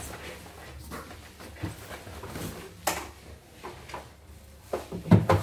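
Unpacking noise: a cardboard box and white plastic embroidery-machine parts being handled, with rustling and scattered knocks, a sharp click about three seconds in, and a cluster of thumps near the end.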